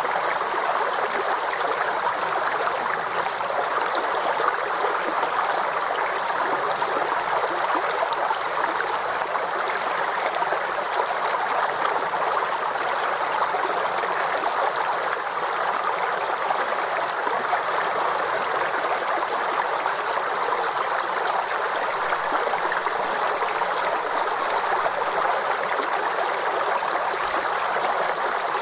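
Forest stream flowing steadily over rocks, a continuous babbling rush of water.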